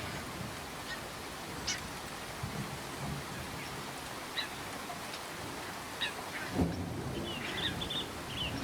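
Steady rain with songbirds giving short chirps here and there, then a quick run of chirps near the end. Low rumbles come and go underneath, the strongest about two-thirds of the way through.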